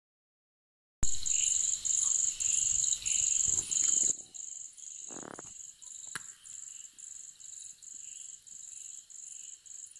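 Cricket chirping in a steady run of high-pitched pulses, about two a second. It starts suddenly about a second in and drops in loudness about four seconds in. A brief hiss comes about five seconds in.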